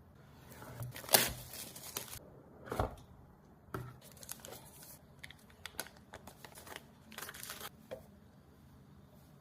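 Packaging being torn open and crinkled by hand while unboxing a phone: a few short ripping tears in the first three seconds, then small clicks and rustles of the box and wrapping being handled.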